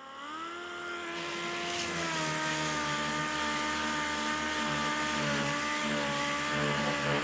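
A motor spinning up and then running steadily with a whining hum over a hiss, its pitch dipping slightly about two seconds in.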